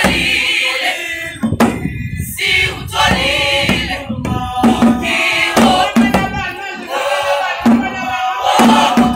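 A choir singing together, accompanied by a hand drum.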